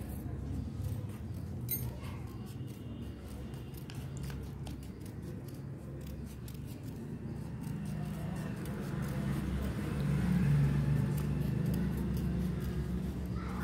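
Scissors snipping through a circle of paper, cutting it into a spiral strip, as a run of small crisp clicks. A low hum sits underneath and grows louder over the last few seconds.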